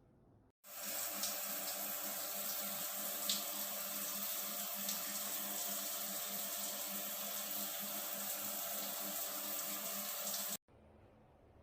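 Water running steadily from the outlet of a Toshiba instant water heater. It starts suddenly about half a second in and stops abruptly near the end.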